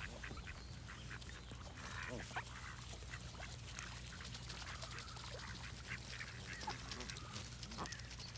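Flock of ducks quacking, many short calls overlapping throughout, over a steady low hum.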